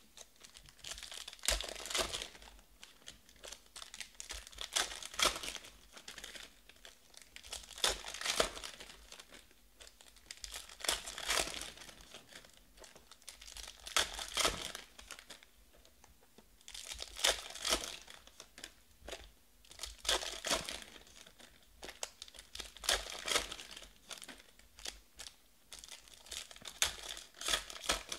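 Plastic-foil wrappers of trading-card packs crinkling and tearing as packs are opened one after another, in bursts about every three seconds.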